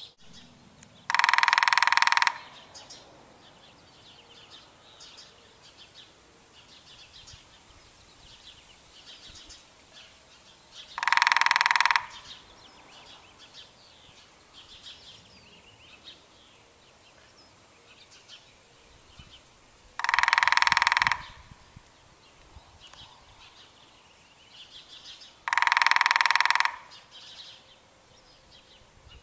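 Woodpecker drumming in four loud rolls of about a second each, spaced several seconds apart, with faint chirps of small birds in between.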